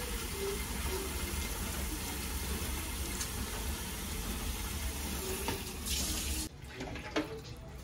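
Water from a pull-down kitchen faucet running steadily into a metal pot of liquid, then shut off abruptly about six and a half seconds in, followed by a few light clicks.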